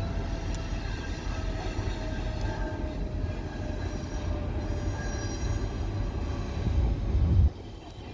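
Passing VIA Rail passenger train led by an F40PH diesel locomotive: a steady low rumble with engine tones that slowly fall in pitch. The sound cuts off suddenly near the end.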